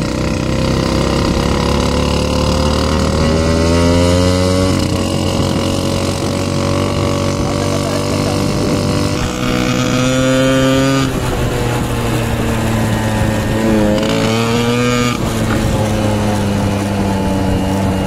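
Small motorcycle engine running under way, heard from the rider's seat, its pitch drifting up and down with the throttle and dipping briefly then climbing again about two thirds of the way through.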